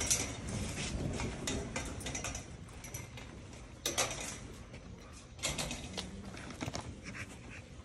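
Chain-link kennel gate and its latch being worked: a few sharp metallic knocks and clicks, one about four seconds in and another about a second and a half later, over a faint background.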